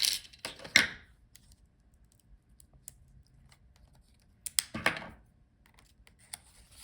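Small screwdriver clicking and scraping against a tiny screw and the metal bracket over a laptop's battery connector. A few sharp clicks come at the start, a cluster of scrapes comes about four and a half seconds in, and faint scattered ticks fall in between.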